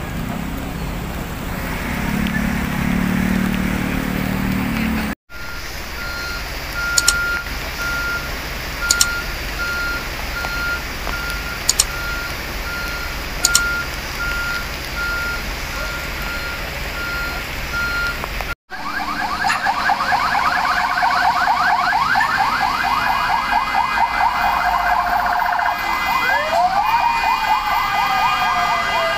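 Traffic noise with engines running in heavy rain. Then a truck's reversing beeper sounds about once a second, with a few sharp clicks. Then an emergency siren yelps in fast rising sweeps, with a slower wail rising and falling near the end.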